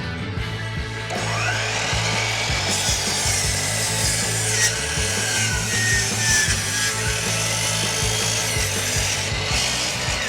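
Power miter saw cutting through wood, with a dense hiss of blade on wood that sets in about three seconds in, over background music.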